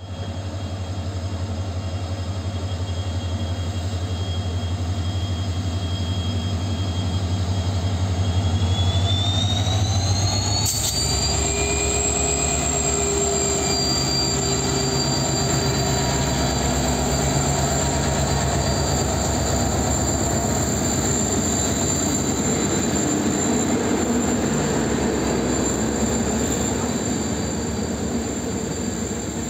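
A WDP4 diesel-electric locomotive's 16-cylinder EMD two-stroke engine runs with a steady low throb as it approaches and passes, a high whine rising about ten seconds in. Its passenger coaches then roll past with a steady rumble of wheels on rail.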